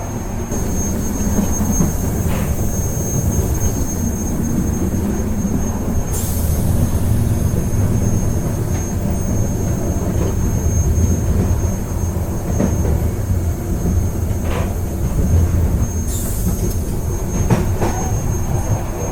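Moving train heard from inside a carriage: a steady low rumble with a few light knocks, and brief hisses about six and sixteen seconds in.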